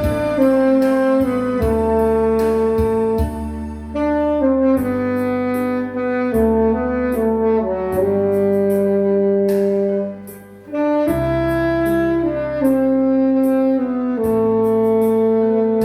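Alto saxophone playing a slow ballad melody in long held notes over an accompaniment with a bass line and a steady drum beat, with a short pause between phrases about two-thirds of the way through.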